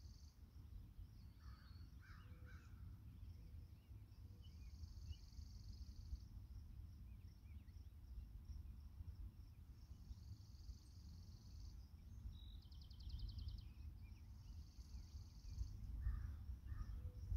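Faint open-air ambience. A high buzzing insect trill comes in bursts of about two seconds every four to five seconds. A few distant bird calls come about two seconds in and again near the end. Low wind rumble on the microphone grows stronger near the end.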